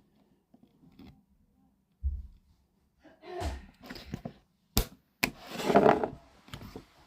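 Handling noises close to the microphone: a low thump about two seconds in, scattered knocks, a sharp click a little before five seconds, then a second-long rustle.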